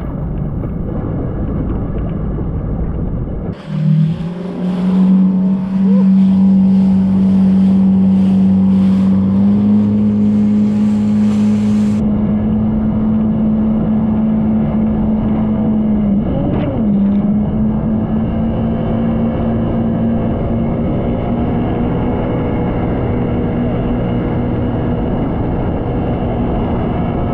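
Jet ski engine running at speed, a loud steady drone that climbs as the throttle opens about four seconds in, with a brief dip and recovery in pitch past the middle, over rushing wind and water.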